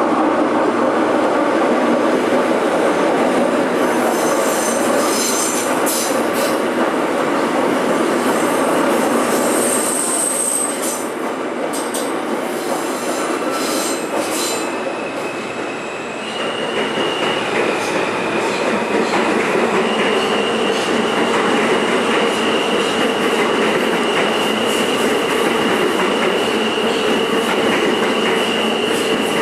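An R160 New York City subway train runs through the station on the express track without stopping: a loud, continuous rumble of wheels on rail, with sharp high squeaks and clicks. From about halfway in, a steady high-pitched wheel squeal sets in and holds.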